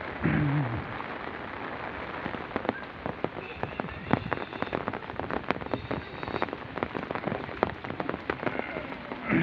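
Steady rain falling, with many sharp raindrop taps close to the microphone. A brief voice sound comes about half a second in.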